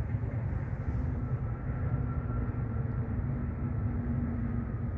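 Steady low rumble of road traffic, with a faint engine hum drawn out through the middle.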